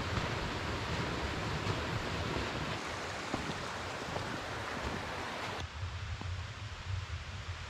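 Steady outdoor wind noise: a rushing hiss over a low rumble of wind buffeting the microphone. The hiss thins abruptly about five and a half seconds in while the rumble carries on.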